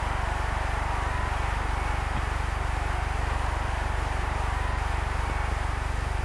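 Steady hiss with a low hum: the background noise of an old film soundtrack.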